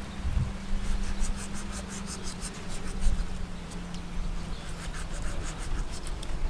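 Kitchen knife slicing through raw shark fillet on a wooden chopping board: a run of short, scratchy cutting strokes at irregular intervals, with the blade tapping the board now and then.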